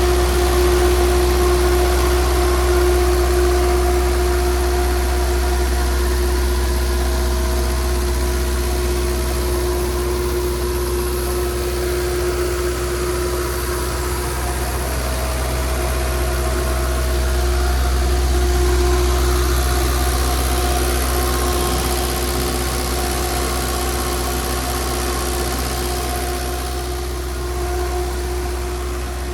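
Atlas Copco XAHS 186 DD mobile air compressor running steadily, its four-cylinder Deutz diesel engine holding a constant speed with a deep hum and a steady whine that fades briefly about halfway through.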